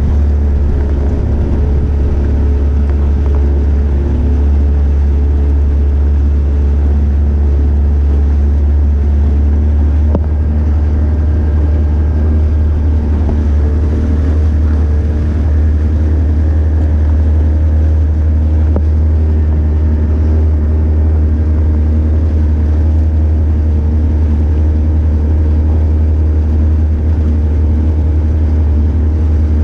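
A small metal motorboat's engine running steadily as the boat moves across open water, a constant low drone with no change in speed.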